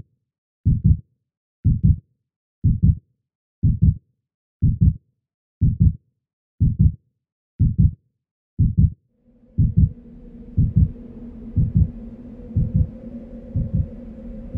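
Heartbeat sound effect: a slow, steady double thump about once a second. From about two-thirds of the way in, a low sustained drone swells in underneath the beats.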